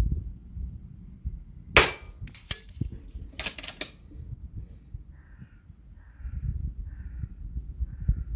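FX DRS PCP air rifle firing: one sharp shot about two seconds in, followed by a few fainter mechanical clicks as the action is worked, then another shot at the very end.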